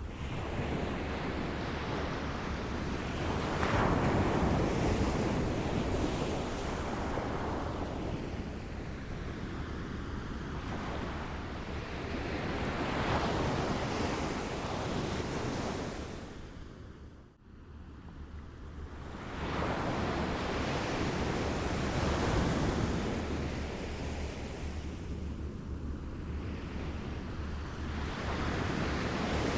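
Waves lapping at the shore, the wash swelling and ebbing every few seconds. About halfway through, the sound briefly drops away almost to nothing before building back.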